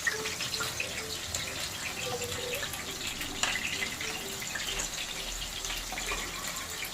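Potatoes and chopped onions frying in hot oil: a steady sizzle with many small crackles.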